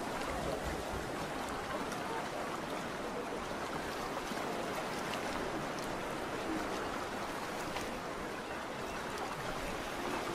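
Harbour-side ambience: a steady wash of water, like small waves lapping against boats.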